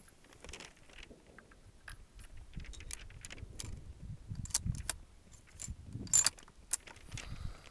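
Scattered small metallic clicks and rattles from handling a scoped Stevens 200 bolt-action rifle, with a few sharper clicks about halfway through and again near the end.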